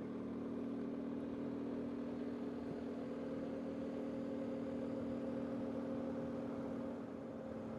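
Steady hum of a motor vehicle engine running, with a slight rise in pitch about three seconds in.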